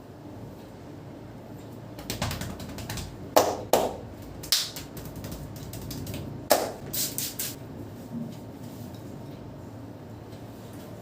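A barber's hands working on a head during a massage: several bursts of sharp clicks and slaps starting about two seconds in, the loudest about halfway through, dying away in the last few seconds.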